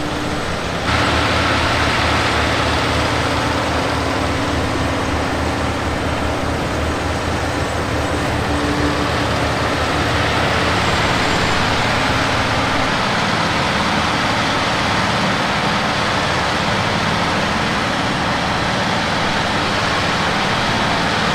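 Tub hay grinder running under load, grinding a round bale of hay, with a tractor engine running alongside: a loud, steady mechanical noise that steps up about a second in.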